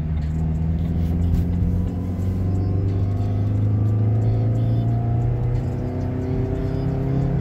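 Car engine accelerating, heard from inside the cabin, its pitch rising steadily, then dropping back past the middle as at a gear change and rising again, over a low road rumble.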